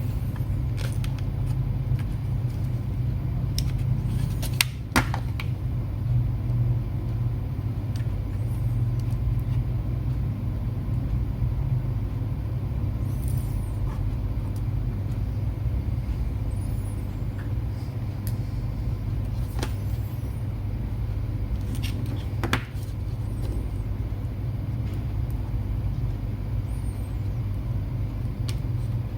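Steady low background rumble, with a few sharp clicks and taps of small screws and a tiny screwdriver being handled on laptop parts.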